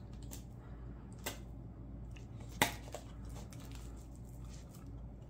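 Knife cutting through a largemouth bass's pin bones and rib cage during filleting, giving a few faint sharp clicks and crunches, the loudest about two and a half seconds in, over a low steady hum.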